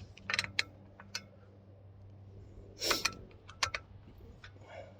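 Scattered small clicks and taps of tools and parts being handled, with a short rustle about three seconds in, over a faint steady low hum.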